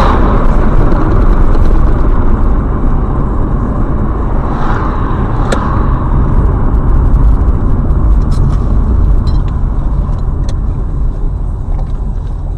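Steady road and engine rumble of a moving car, heard from inside the cabin, with a few sharp clicks.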